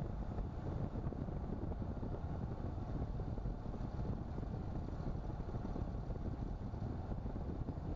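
Steady road and engine noise of a Tata Nexon on the move, heard inside the car's cabin: a continuous low rumble with no change in pace.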